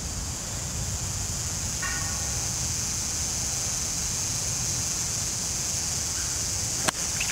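A single sharp crack of a golf club striking a teed-up ball near the end, over a steady high hiss and low wind rumble.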